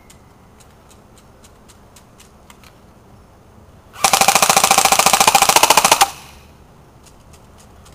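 Classic Army MP5A2 electric airsoft gun firing one full-auto burst of about two seconds: a rapid, even rattle of shots about four seconds in.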